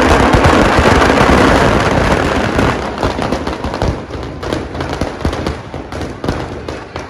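Firecrackers packed inside a burning Ravana effigy going off in a dense, rapid crackle of bangs, thinning to scattered pops after about three seconds.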